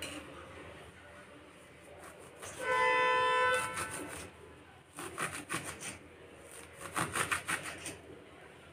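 A small kitchen knife chopping a bunch of fenugreek leaves on a bare stone surface, in two quick runs of about five or six strokes each, near the middle and near the end. Near 3 s in, a steady pitched tone lasts about a second and is louder than the chopping.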